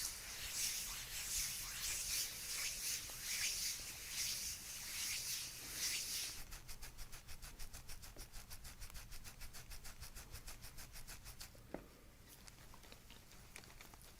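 Hands rubbing over a patient's back in quick, even massage strokes, about two a second. About six seconds in they give way to a fainter, faster run of soft ticks, which stop near the end.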